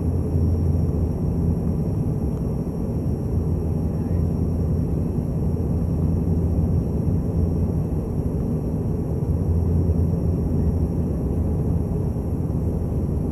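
Bombardier Q400's Pratt & Whitney PW150A turboprops and six-bladed propellers droning steadily inside the cabin on final approach: a deep, even hum with a faint thin high whine above it.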